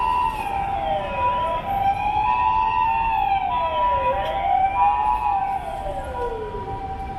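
Emergency vehicle sirens: a two-tone siren switching between two steady pitches, with a wailing siren sweeping down and up several times over it. The wail slides lower and fades out a little before the end, and the whole sound gets quieter near the end.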